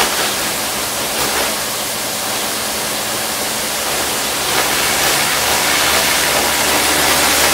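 Kärcher electric pressure washer running, its water jet giving a steady loud hiss as it blasts the patio slabs, with the machine's low motor hum underneath.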